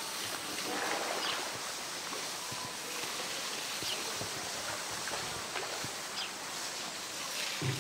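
Pool water sloshing and lapping as a polar bear swims and pushes a floating plastic tank, with a few small drips and splashes.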